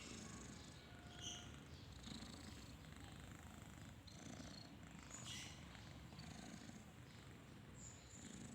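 Sleeping cat snoring softly: a faint low rumble that swells and fades in a slow rhythm.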